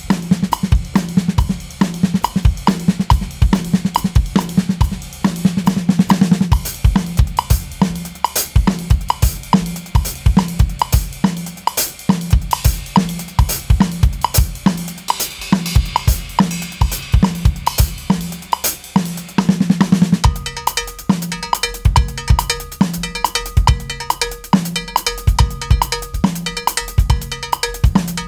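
Drum kit played in an improvised groove, the hands keeping to paradiddle sticking while moving between snare, toms and cymbals over the bass drum. About 20 seconds in the hands move to a cowbell, which rings out in a steady repeating pattern over the kick drum.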